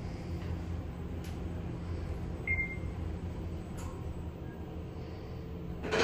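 Schindler 3300 elevator car travelling, a steady low hum in the cab, with one short high beep about two and a half seconds in as it passes a floor. A brief louder noise comes right at the end.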